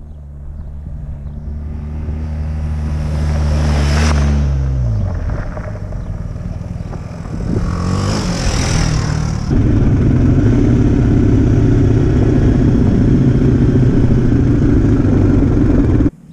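Off-road motorcycles on a gravel track: one approaches and passes, its engine note rising and then dropping about four seconds in, and another rushes past about eight to nine seconds in. Then a steady engine run with wind, heard from a camera mounted on the moving motorcycle, which cuts off suddenly near the end.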